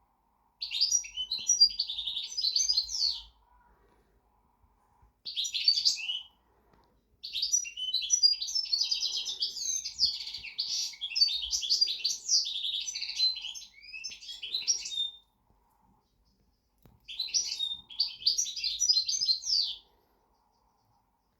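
Pet goldfinch singing: four bouts of fast, high-pitched twittering. The longest bout lasts about eight seconds, and there are short pauses between them.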